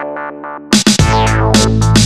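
Electronic music: synthesizer or electric-piano chords, then a drum-machine beat with heavy bass comes in under a second in.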